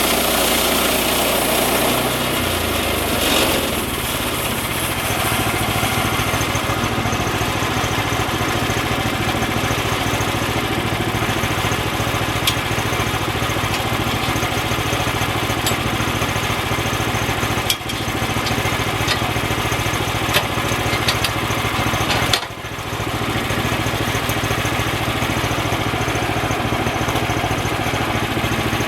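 Engine-driven bandsaw sawmill running steadily with a Ripper 37 7-degree bevelled-tooth blade, sawing white oak. The engine note shifts about two seconds in and dips briefly twice later on.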